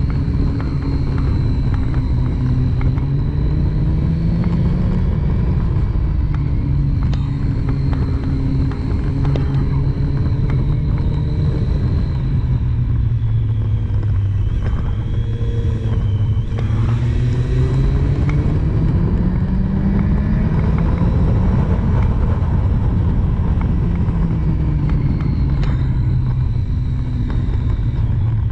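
Triumph Street Triple's inline three-cylinder engine heard from on board while riding, its revs rising and falling again and again as it accelerates out of corners and eases off into them.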